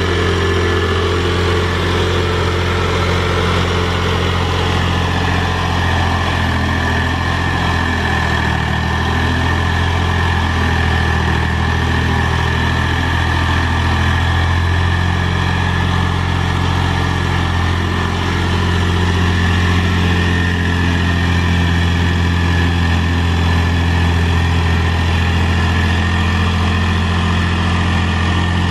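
Mahindra 3525 tractor's diesel engine running steadily while the tractor drags a box blade through loose dirt. A steady high whine sits above the engine note from a few seconds in.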